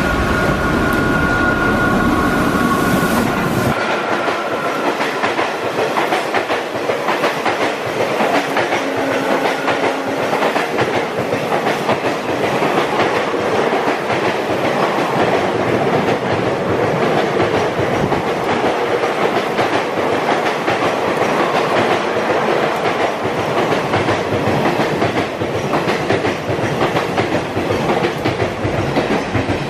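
An Indian Railways superfast express hauled by a WAP4 electric locomotive rushes past at speed. The locomotive's two-tone horn fades out over the first few seconds, then the coaches roll by with a steady rapid clickety-clack of wheels over the rail joints.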